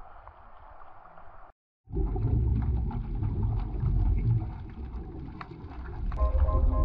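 Surface water sloshing against the camera housing. After a brief cutout, the camera is underwater and a scuba diver's exhaled bubbles rise from the regulator, giving a low, crackling bubbling that is louder than the surface sound. Music notes come in near the end.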